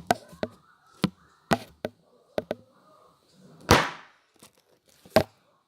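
Small objects handled on a tabletop: an irregular string of sharp clicks and taps, with one longer, louder scrape about three and a half seconds in, as tubs of modelling dough are picked up and put down.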